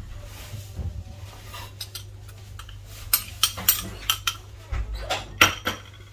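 Kitchenware clinking: a small glass dish and utensils knocked and set down beside a pan, a quick run of sharp clinks in the second half over a low steady hum.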